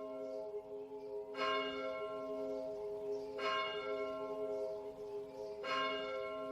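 Bell tolling slowly: three strikes about two seconds apart, each ringing on until the next.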